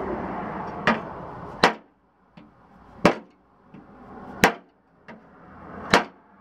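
Sharp hammer blows on a sheet-metal car fender, five strikes about one every second and a half, each with a short metallic ring. A heat gun blows under the first two and cuts off after about a second and a half.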